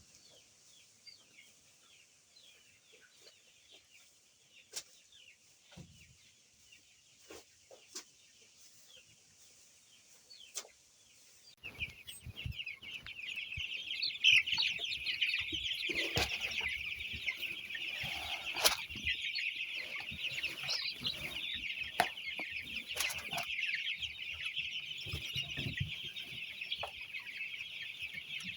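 For about the first twelve seconds there are only faint scattered ticks over a high hiss. Then the sound changes abruptly to a flock of free-range chickens clucking and calling together: a dense, continuous chatter with scattered louder calls and knocks.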